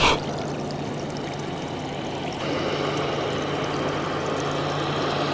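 Steady riverside background noise: an even, water-like hiss over a constant low hum, growing a little louder and brighter about two and a half seconds in.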